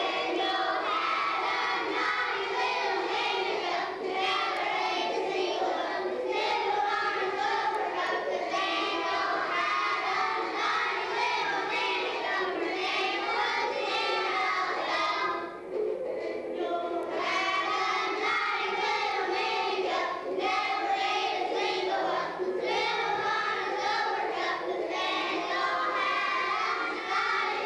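A group of preschool-age children singing a song together, with a brief pause about halfway through.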